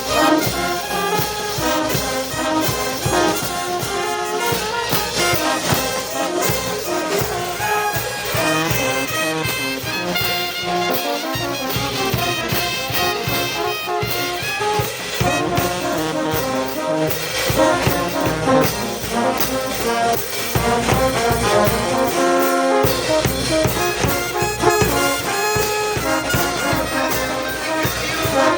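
Brass band playing, trumpets and trombones carrying the melody over a steady drum beat.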